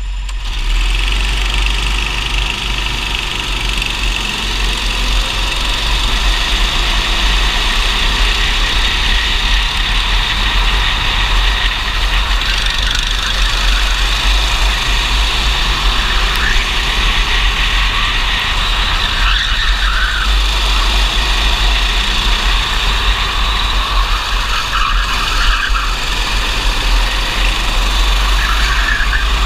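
Racing go-kart engines running hard, heard from an onboard camera on the kart in a pack of other karts, over a steady deep rumble.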